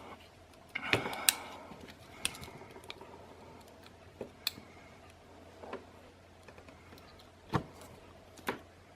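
Victorinox Deluxe Tinker Swiss Army knife being handled while its back tools are opened: scattered small metallic clicks and snaps, a few seconds apart.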